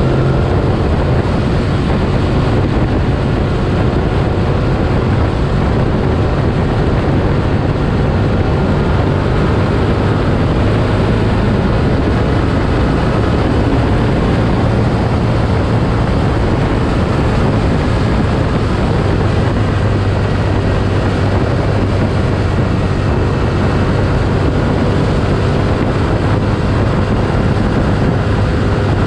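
Motorcycle engine running at a steady cruise, with wind noise rushing over the microphone.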